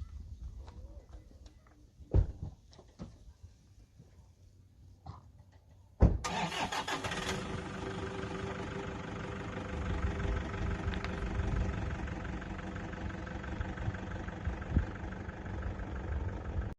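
A few scattered knocks, then an engine starts suddenly about six seconds in and keeps running steadily.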